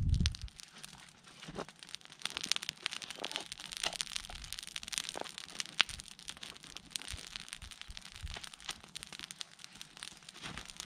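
Wood campfire crackling, with many irregular sharp pops.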